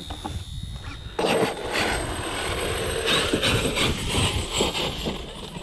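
Traxxas X-Maxx brushless RC monster truck taking off across dry grass. Its motor and tyres start suddenly about a second in and keep running.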